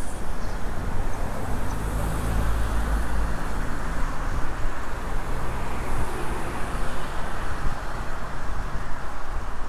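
City street traffic heard from a moving bicycle: car engines and road noise under a steady rush of air, with a heavier low rumble about two to three seconds in.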